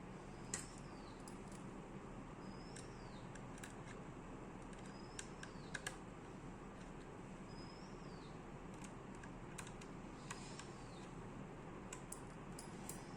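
Scattered small clicks and taps from handling the SSD, its metal brackets and the laptop, the sharpest about half a second in and a few near the middle. Under them a steady low hum, and a bird repeating a short falling chirp every second or two.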